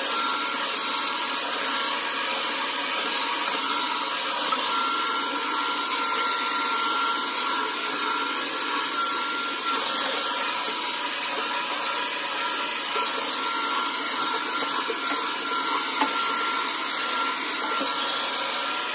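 Handheld hair dryer with a comb attachment running steadily: an even rush of blown air with a faint high whine through it.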